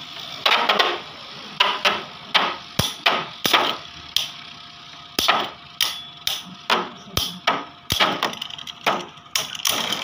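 Two Beyblade spinning tops battling in a plastic stadium: repeated sharp plastic clacks as they collide and knock against the stadium, coming irregularly about one or two a second. A faint steady tone runs under the clacks from about four seconds in.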